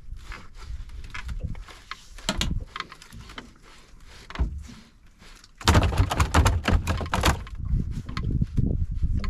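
Scattered knocks and thumps on a small fishing boat, with a loud burst of rapid thumping about six seconds in that lasts under two seconds.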